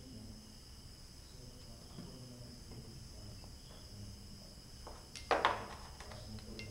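Loose pieces of natural stone knocking and scraping against one another and the wooden table as they are fitted together, with one short loud clatter about five seconds in. Steady high cricket chirping runs underneath.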